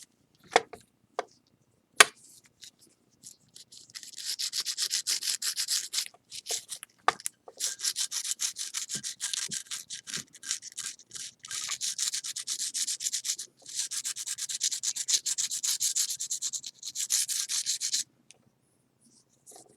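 Quick back-and-forth rubbing strokes on the lacquer-filled repair seam of a ceramic plate, taking off the excess filler, in several spells with short pauses. A few light clicks come before the rubbing starts.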